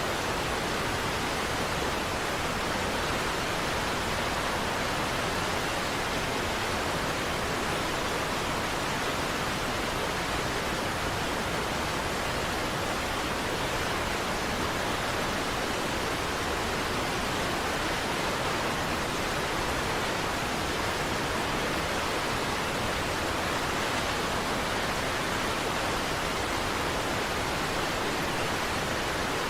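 Niagara Falls' waterfall rushing, a steady, even wash of falling water with no breaks or changes.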